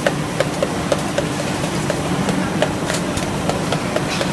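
Steady workshop machine hum with light, sharp metallic ticks two or three times a second.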